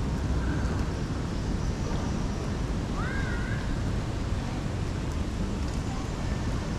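Steady wash of rain and city traffic, with a brief high sliding call about three seconds in.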